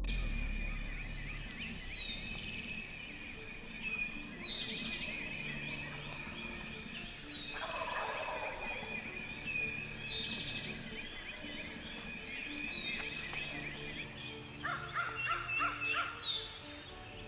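Wild turkey gobbling twice, about eight seconds in and again near the end, among repeated high songbird chirps and a steady high trill.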